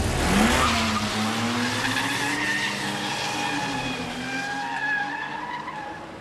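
Car pulling away hard with its tyres squealing in a burnout and its engine revving up, the sound fading as it speeds off down the street.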